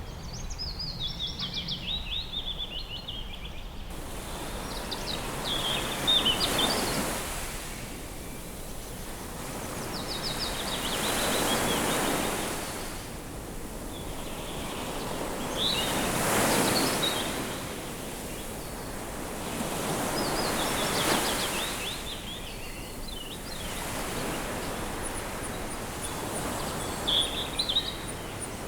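Waves breaking on a shore, the surf swelling and falling back about every four to five seconds. Over it, birds give short rapid high chirping calls, one call every few seconds.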